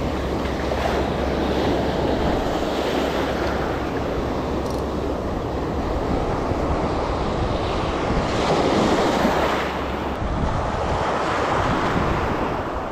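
Shallow surf washing and foaming in and out, with wind buffeting the microphone; the wash swells a little louder about eight seconds in.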